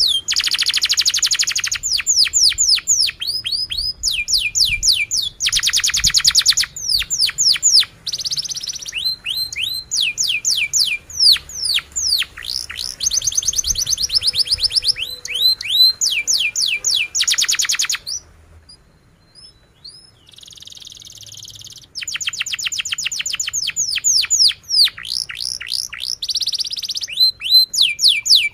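Domestic canary singing a long song: runs of rapid, repeated falling whistled notes and fast trills, one run after another. The song breaks off for a few seconds about two-thirds of the way through, then starts again.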